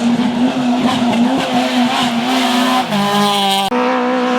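Competition car's engine running hard at high, steady revs, with a short drop in pitch about three seconds in before it picks up again.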